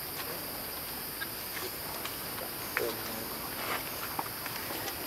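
Forest ambience: a steady high insect hum, with scattered faint ticks and a short wavering sound a little past halfway.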